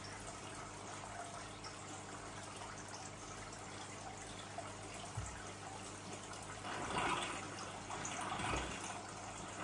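Aquarium water trickling steadily where the filter return pours into the tank, over a low steady hum. The splashing swells louder about seven seconds in and again about a second and a half later.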